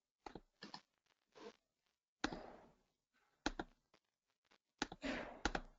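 Faint computer keyboard keystrokes and clicks while a chat message is typed. Two louder, short, noisy sounds come about two seconds in and near the end.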